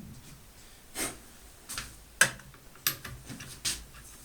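About five sharp clicks and knocks of hand-handling the Einhell TH-RO 1100 E router while a bit is fitted into its collet, the loudest a little past two seconds in.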